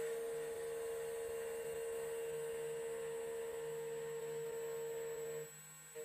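CNC key cutting machine's spindle whining on one steady tone while the cutter mills a copper key blank, with a rough cutting noise underneath. Both stop suddenly about five and a half seconds in.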